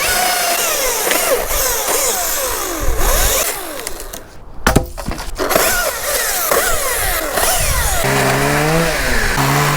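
Chainsaw revving up and down as it cuts through small holly branches, with a short break about four seconds in. A lower engine note with a wavering pitch comes in near the end.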